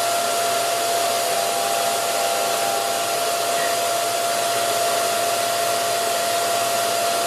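Steady whooshing motor noise with a constant whine, unchanging throughout.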